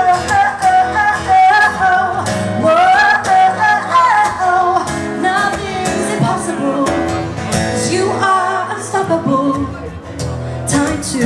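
A woman singing a pop song live into a microphone over instrumental accompaniment, her voice sliding up and down through long vocal runs.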